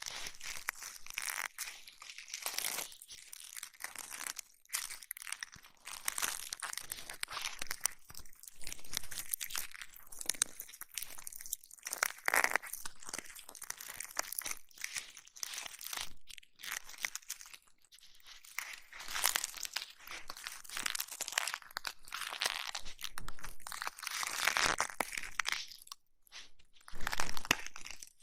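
Close-miked ASMR ear-massage sounds: irregular crackling, crunching and rubbing right against an ear microphone, full of small clicks.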